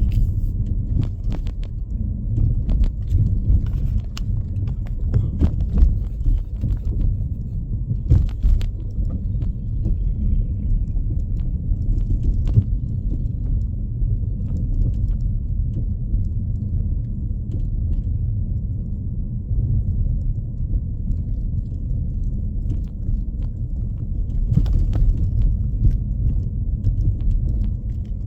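Car driving on a snow-covered road: a steady low road rumble with scattered clicks and knocks.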